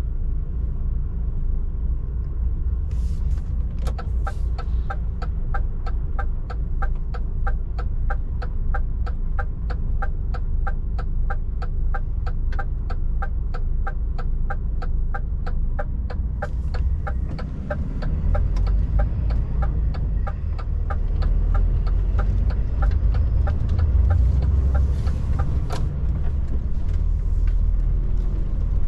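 DAF truck cab: the turn-signal indicator ticks evenly, starting about four seconds in and stopping a few seconds before the end, over the steady low rumble of the truck's diesel engine, which grows louder in the last third as the truck pulls away after the turn.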